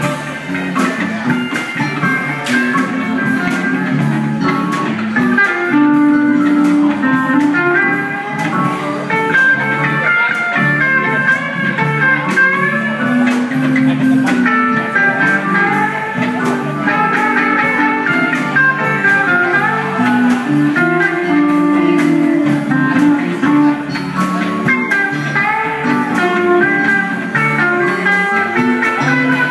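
Live band playing a blues number: electric guitars over bass and keyboard, with a steady beat.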